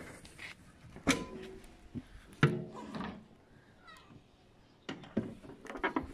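Chevrolet Lacetti's steel bonnet being released and lifted open: two loud metallic clunks with a short ringing about one and two and a half seconds in, then lighter clicks and knocks near the end.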